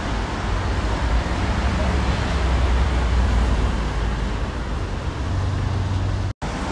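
Steady outdoor street noise: a low rumble with a hiss over it, typical of traffic, cutting out for an instant near the end.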